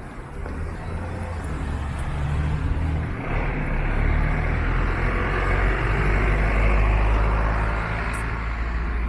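A road vehicle passing close by: a low engine hum with tyre noise that swells from about three seconds in, is loudest around two-thirds of the way through, then eases.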